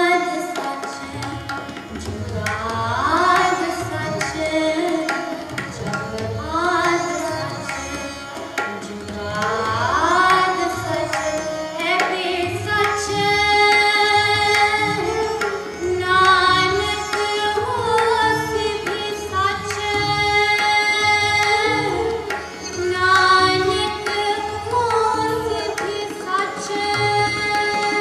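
Sikh devotional music (shabad kirtan): a voice sings long, gliding ornamented phrases over a steady tabla accompaniment.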